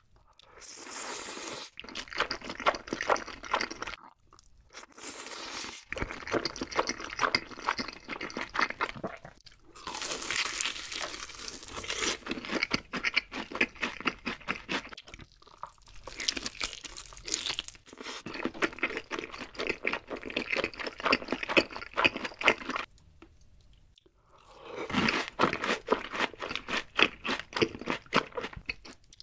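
Eating sounds: noodles slurped at the start, then fried food bitten and chewed with dense crunching, in long runs broken by a few short pauses.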